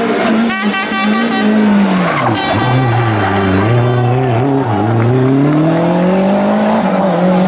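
Rally car engine dropping in pitch as the car slows, running low for a few seconds, then rising steadily as it accelerates away.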